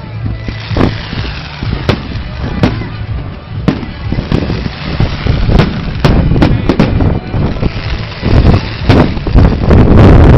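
Fireworks display: a string of sharp bangs and crackles at irregular intervals over a low rumble, coming thicker and louder near the end.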